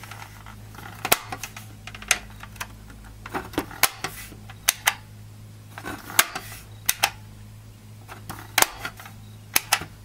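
Sharp plastic clicks, about ten at uneven spacing, from the Sony PlayStation 1's disc-lid latch and open-button parts being snapped back together and tried. The release latch is working again.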